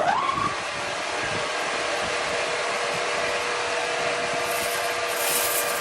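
Power saw running steadily through a log with a constant whine, after speeding up in a short rising glide at the start.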